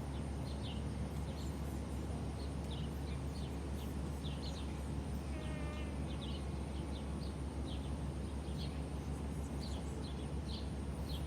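Outdoor background with many short, high bird chirps scattered throughout, over a steady low rumble. One longer, richer call comes about halfway through.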